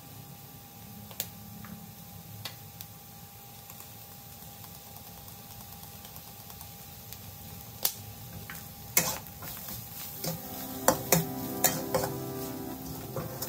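Metal spatula scraping and clinking against a wok as a diced filling is stir-fried, over a faint sizzle. At first there are only a few scattered clicks; from about two-thirds of the way in, the clinks come quickly as the stirring begins in earnest.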